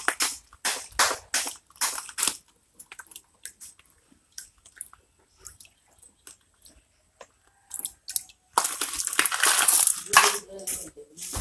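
A hand stirring and swishing water in a plastic bucket, loudest for a second or two near the end. The stirring follows a quick run of small clicks and crunches near the start.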